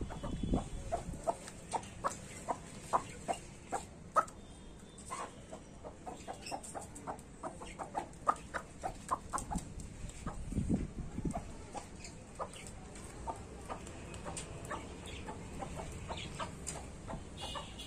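Chickens clucking and pecking at scattered feed on a concrete yard, with short, sharp clucks and pecks coming a few times a second.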